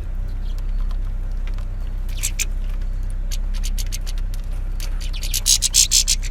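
Small birds pecking and cracking seeds at a feeder: many short irregular taps and clicks, crowding together into a louder flurry near the end, over a steady low hum.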